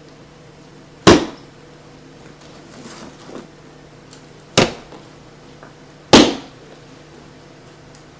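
Three sharp bangs at uneven intervals, each dying away within a fraction of a second, over a faint steady hum.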